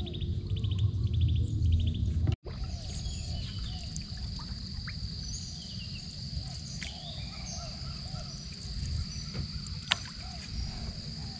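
Outdoor evening ambience with birds calling and chirping over a steady high-pitched drone and a low rumble. The sound drops out for an instant about two seconds in, and a single sharp click comes near the end.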